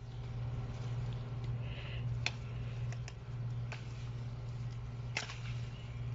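Long-handled loppers clicking and snapping as they bite at a tough tree sapling that will not cut through. Two sharp clicks, about two seconds in and about five seconds in, with a few fainter ones between, over a steady low hum.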